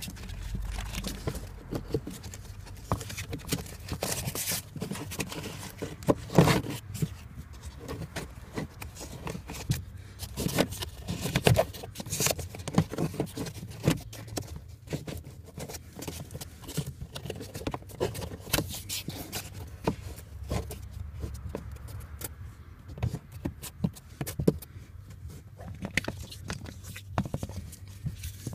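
A cabin air filter being slid by hand into its plastic housing under the dashboard: irregular scraping and rustling with plastic clicks and knocks, the loudest knock about six seconds in.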